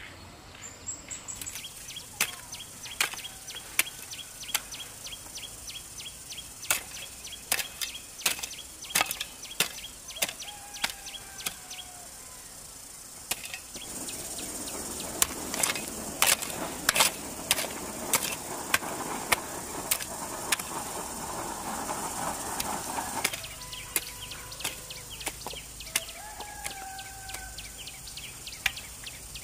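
Birds calling with short whistled notes over a background of sharp ticks and clicks. About halfway through, for roughly nine seconds, a denser scraping noise with louder taps comes in: bare feet stepping on loose, stony soil.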